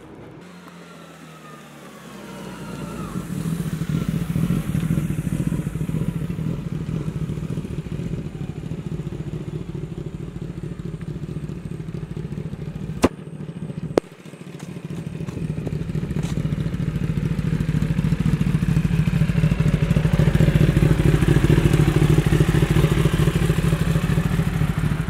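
Kawasaki Ninja ZX-10R's 998 cc inline-four engine running through an SC Project aftermarket exhaust. It is a steady drone that comes in about two seconds in. Two sharp clicks break it about halfway through, and then it grows louder toward the end.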